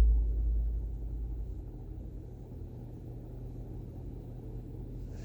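Hampton Bay Landmark ceiling fan running on high, its airflow buffeting the microphone as a low rumble over a steady low hum. The rumble surges loudly right at the start and eases off over the next second or so.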